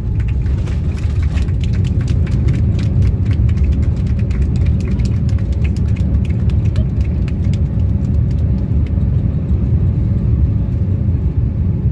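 Cabin noise of a Boeing 787-9 rolling along the runway after touchdown: a loud, steady low rumble with rapid clicking rattles that thin out after about seven seconds.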